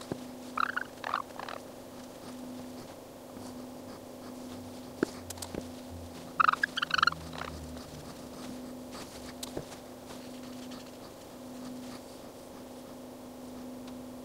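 Cotton ball squeaking against the glass of a telescope objective lens element as it is wiped dry of alcohol, in two short bouts of choppy squeaks. A low steady hum runs underneath, with a few faint clicks.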